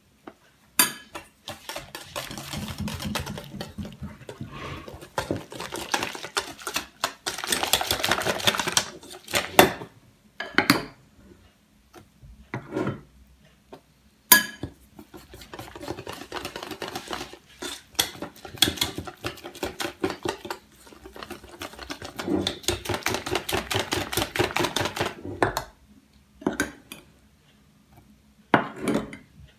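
Wire whisk beating flour into pancake batter in a stainless steel bowl: fast rattling and scraping of the wires against the metal in two long stretches. Between the stretches come a few sharp clinks of a metal spoon against the bowl as more flour is added.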